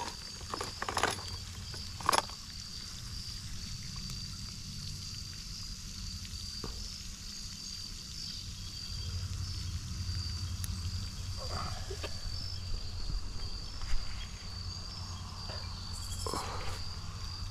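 Crickets chirping in a steady, evenly pulsing high trill, with a low rumble underneath and a few short clicks from handling.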